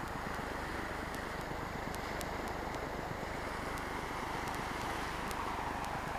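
Steady rushing wash of waves on a shore, mixed with wind.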